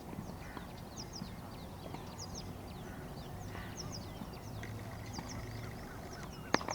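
Birds chirping outdoors in short, high double notes that repeat every second or so over a low steady background, with one sharp click near the end.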